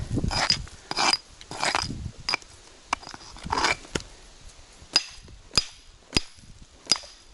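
Rock pick working at a magnetite boulder: a few rough scraping strokes at the rock, then a series of sharp knocks of the hammer on the stone, about one every half second to second.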